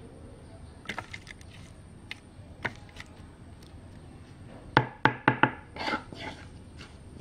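Scattered light clicks and knocks, then a quick run of four sharp knocks about five seconds in, the loudest sound.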